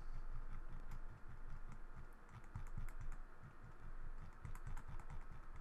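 Typing on a computer keyboard: many light key taps in quick, irregular succession.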